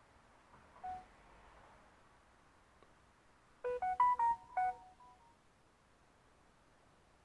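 A short electronic melody of five or six quick beeping notes at different pitches, about three and a half seconds in, with a single faint beep about a second in.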